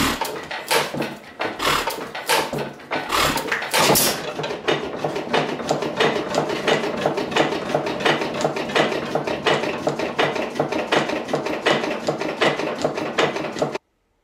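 Hopper-cooled hit-and-miss flywheel engine running: a fast, even mechanical clatter from its valve gear and igniter, with a few heavier beats in the first four seconds. The clatter cuts off suddenly near the end.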